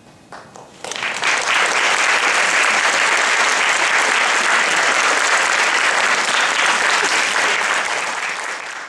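Audience applauding: a few scattered claps, then within a second full, steady applause.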